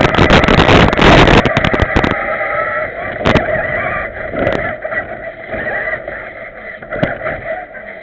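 A remote-control 4x4 truck's motor and gears whining as it drives, picked up by a camera mounted on the truck. For the first two seconds a dense rattle of knocks as it bumps over rough ground, then a steadier whine with a few single knocks.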